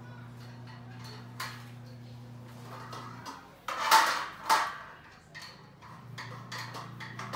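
Metal parts and hardware of a flat-pack computer table clinking and tapping while being handled and fitted together, with two loud ringing clanks about four seconds in.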